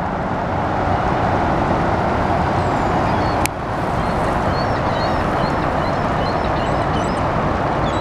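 Steady drone of city and expressway traffic. A single sharp click about three and a half seconds in, and faint high chirps in the second half.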